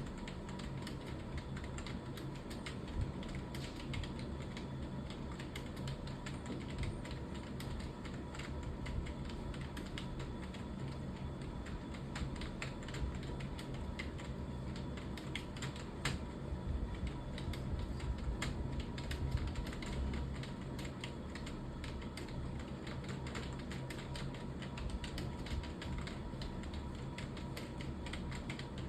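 Computer keyboard being typed on continuously and quickly, a dense stream of key clicks during English typing practice, over a steady low hum.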